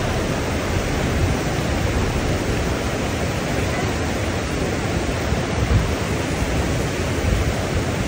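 River water rushing over a weir, a steady, even rushing noise, with a few low thumps near the end.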